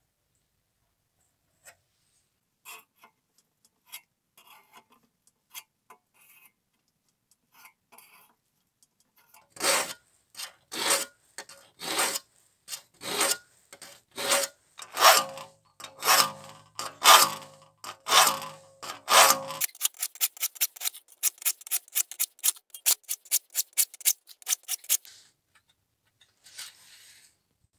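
Triangle file sharpening the teeth of a steel crosscut saw. It starts with long, even strokes, somewhat under two a second, while the blade rings under them, then changes to quick, light strokes about five a second. Before the filing there are a few faint metal clicks from saw-set pliers on the teeth.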